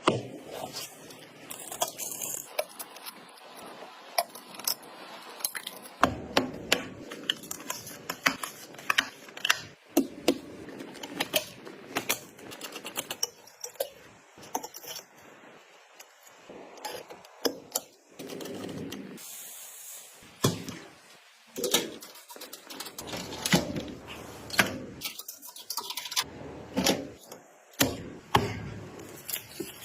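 Computer parts being handled and fitted during a PC assembly: many irregular sharp clicks, taps and clatters of plastic and metal pieces, with some longer scraping or rustling stretches.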